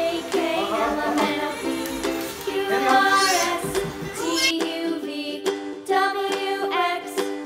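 Background music: a song with singing.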